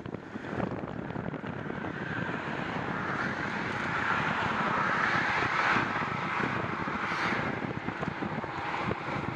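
Wind and road rush while riding a bicycle across a river bridge. A louder rushing swell builds over a few seconds, peaks about five to six seconds in, then eases off.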